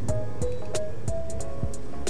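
Background music: a melody of short notes over a steady beat of sharp hits and low thumps.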